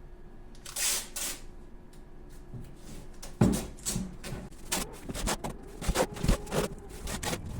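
Cardboard boxes being handled and taped with masking tape: two short rasps of tape pulled off the roll about a second in, a dull thump of cardboard, then a quick run of taps and knocks.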